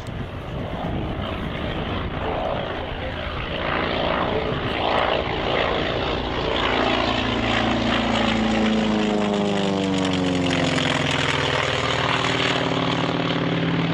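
North American T-28 Trojan's radial engine and propeller on a low pass, growing louder as the plane closes in, then dropping in pitch as it goes by in the last third.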